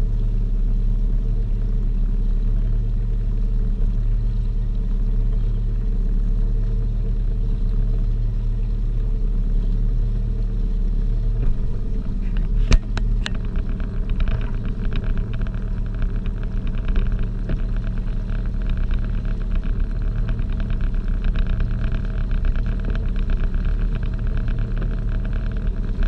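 Boat engine running steadily under way with a low hum, and a single sharp knock about halfway through. A light crackling hiss joins it after the knock.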